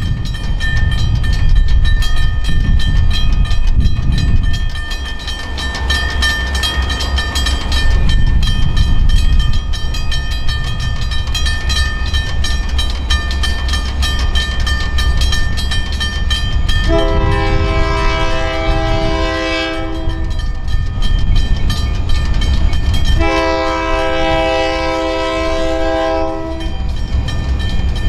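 A pair of teardrop grade-crossing bells ringing fast and steadily over a steady low rumble. About two-thirds of the way in, a diesel locomotive's air horn sounds two long blasts, and a third starts just before the end: the grade-crossing horn signal of the approaching train.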